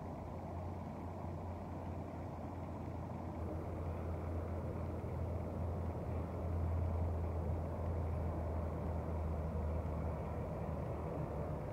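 A motor vehicle's engine running as a steady low hum, growing louder about halfway through and holding there.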